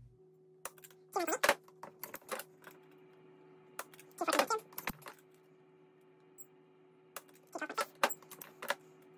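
Sharp clicks and short metallic clatters from a Walther Q5 Steel Frame pistol fitted with an Overwatch Precision Tac trigger. The trigger breaks under a pull gauge and the slide is racked by hand to reset the striker, about three times. A faint steady hum runs underneath.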